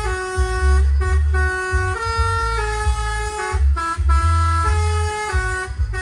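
Bus 'basuri' telolet air horn playing a melody, one note after another with quick steps in pitch, over a heavy low rumble.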